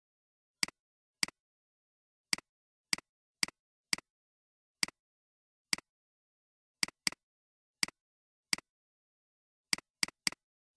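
Computer mouse button clicks, about fifteen at uneven intervals, each a sharp press followed by a softer release, with dead silence between them.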